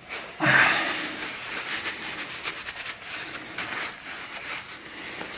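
Handling noises from clearing a table: a broad rustle about half a second in, then many small clicks, taps and rustles as things are wiped and moved.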